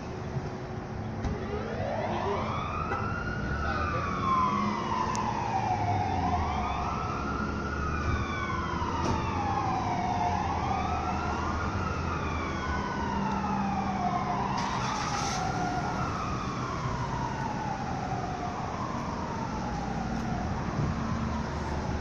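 Federal Signal STH-10 fire siren winding up about a second in, then wailing up and down in pitch about every four seconds, sounding a fire company call-out.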